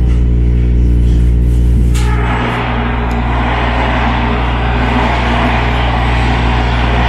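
Inside a MARTA rail car: a steady low electrical hum from the car's equipment, joined about two seconds in by a broad rushing noise that then holds steady.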